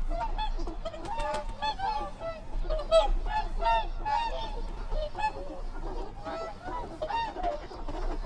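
A group of swans honking: many short, nasal calls overlapping one another, several a second, loudest about three seconds in.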